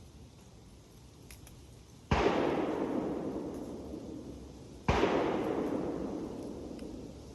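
Two shotgun shots about three seconds apart, each a sharp crack followed by an echo that rolls away for a couple of seconds.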